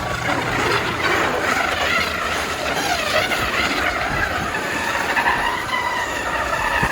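Electric RC truck motor and drivetrain whining, the pitch rising and falling as it revs.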